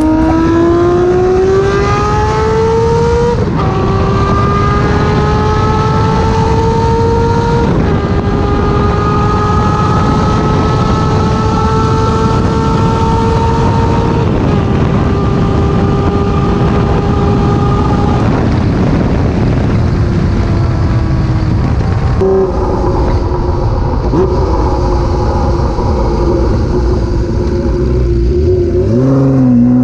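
Six-cylinder motorcycle engine accelerating hard through the gears. Its note climbs steadily and drops at each of four upshifts. About 22 seconds in it changes to a steadier, wavering engine note.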